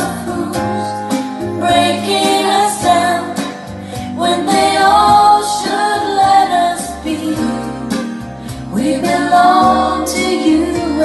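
A pop ballad with a sung vocal over instrumental backing, played loud through a pair of bookshelf speakers driven by a DIY Pass Aleph 5 clone class A power amplifier.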